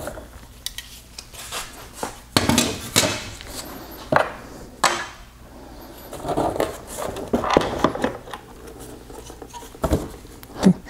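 Plastic headlight parts being handled and set down on a wooden workbench: irregular clunks and rattles as the removed LED unit is put aside and the plastic headlight housing is turned over.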